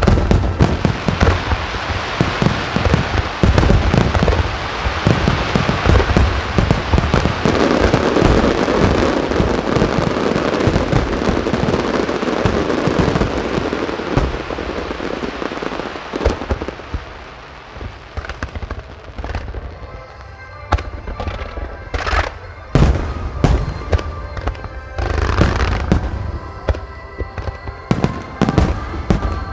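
Fireworks display: a dense barrage of shell bursts and crackling over the first half, thinning to separate booms in the second half. Music plays over the PA underneath, as in a music starmine.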